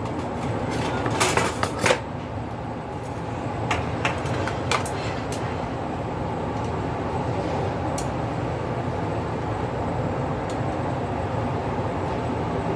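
A pot of water at a rolling boil with black chicken parboiling in it: a steady bubbling rumble. There are a few light clicks and clinks in the first five seconds.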